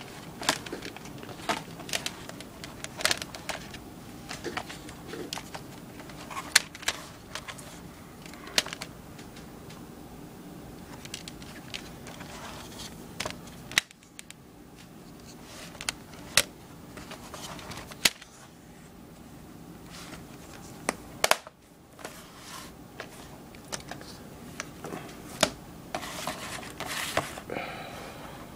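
Plastic DVD cases and discs being handled: an irregular string of sharp clicks and knocks, with some rustling near the end.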